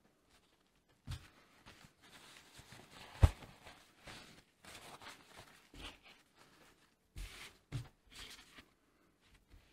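Paper towel rustling and rubbing on a freshly dyed leather cuff, with a few knocks against the cutting mat; a sharp knock about three seconds in is the loudest sound.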